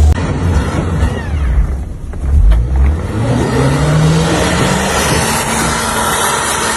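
A car engine revving, its pitch rising steadily from about three seconds in and then holding, over a heavy low rumble.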